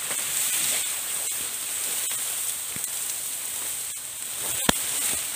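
Tall grass stalks rustling and swishing as a person pushes through them, over a steady high hiss, with one sharp snap near the end.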